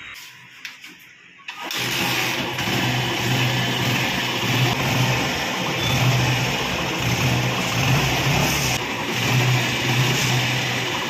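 Hero Honda CBZ's single-cylinder four-stroke engine starting: a few faint clicks, then it catches about a second and a half in and keeps running, its sound swelling and easing every second or two as the throttle is worked.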